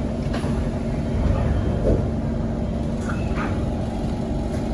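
Steady low hum and rumble inside a stationary Kawasaki C151 MRT car, as its sliding doors close with a thud about two seconds in, followed by a few light clicks.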